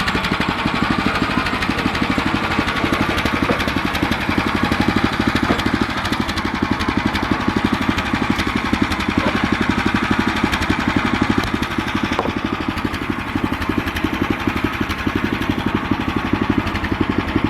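Gasoline engine of a Harbor Freight band sawmill running steadily, with a fast, even firing beat.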